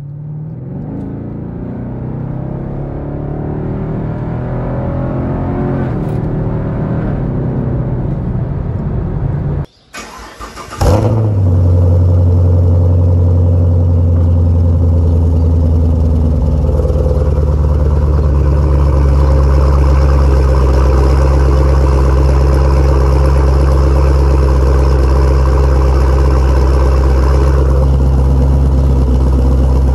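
Chevrolet Camaro V8 heard from inside the cabin, accelerating with its pitch rising steadily for about ten seconds, until the clip cuts off. Then the same V8 starts up with its Valvetronic valved mufflers closed and settles into a steady, deep idle.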